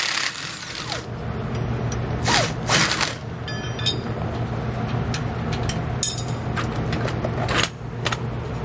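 A cordless impact wrench hammering on a lower shock-mount bolt stops about a quarter-second in. It is followed by scattered sharp metal clicks and clinks as the loosened bolt, nut and washers are handled.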